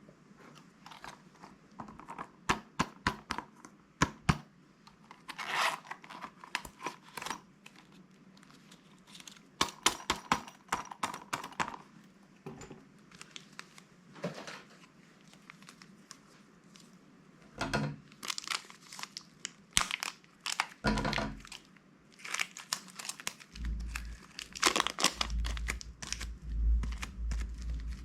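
Crisp crinkling and crackling of plastic slime bags being handled and squeezed, with many sharp irregular clicks. A few dull thumps come in the second half.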